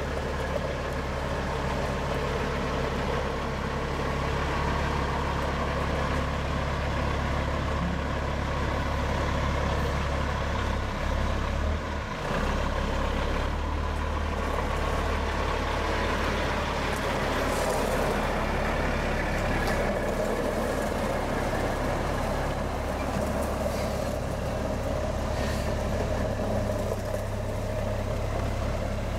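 Diesel semi-truck engine running steadily at low speed as the tractor pulls an empty flatbed trailer around.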